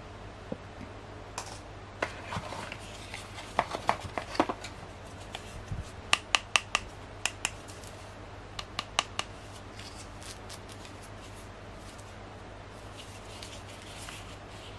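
Handling noise of a tablet's boxed accessories: sharp plastic clicks and taps as the charger brick and coiled USB cable are taken out and turned over in the hands, with a quick run of four or five clicks around the middle and quieter stretches near the end.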